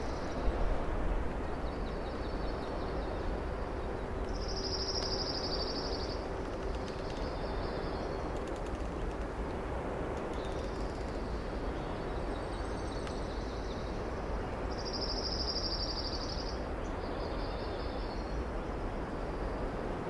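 A songbird singing a high trilled phrase twice, about ten seconds apart, with fainter high calls between, over a steady hiss of boreal forest ambience. A short thump comes just after the start.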